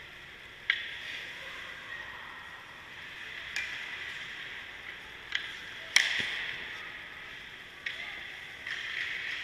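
Ice hockey skate blades scraping and hissing across rink ice, with five sharp clacks of puck and stick hitting. The loudest clack comes about six seconds in.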